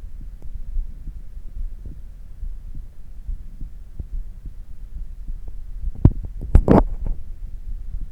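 A human heartbeat picked up against the chest, with low thuds over a steady hum, as the heart slows back toward a normal resting rhythm after exercise. About six seconds in, a brief, loud scratchy rustle cuts in, handling noise from the microphone rubbing.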